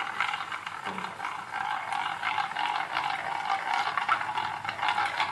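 Drops of gram-flour (besan) batter falling through a perforated ladle into hot oil and frying as boondi, with a steady sizzle.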